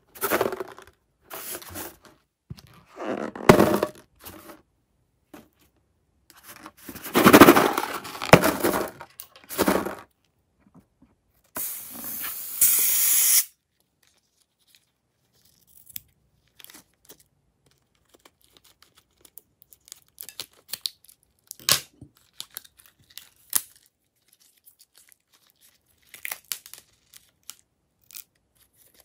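A filled rubber balloon rubbed and handled, with loud bursts of rubbing noise through the first ten seconds. About twelve seconds in, scissors cut through the balloon's neck. Afterwards come sparse faint clicks and crackles as the balloon is squeezed over the slime.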